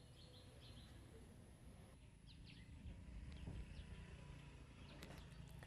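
Near silence: faint outdoor ambience with a few faint bird chirps.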